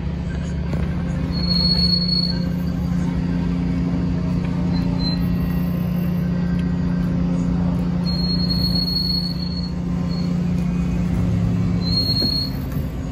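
Ferry's engines droning steadily, a low hum over a constant rumble. Three brief high-pitched squeaks come through, about two seconds in, around eight seconds in and near the end.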